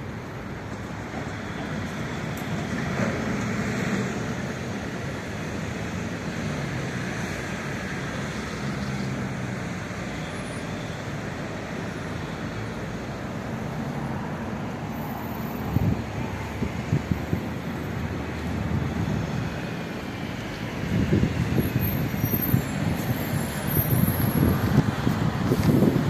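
Steady city traffic noise from cars on nearby roads. Louder, uneven low rumbling comes in for the last few seconds.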